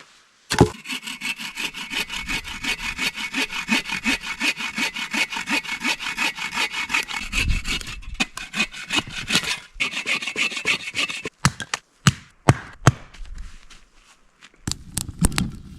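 Hand saw cutting firewood with quick, even back-and-forth strokes, several a second, for about ten seconds. It stops about eleven seconds in, and a few separate sharp knocks or snaps of wood follow.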